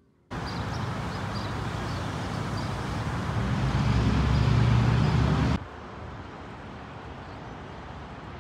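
City road traffic: a dense wash of vehicle noise whose low rumble builds to its loudest about four to five seconds in. It then cuts off suddenly to a quieter, steady outdoor background.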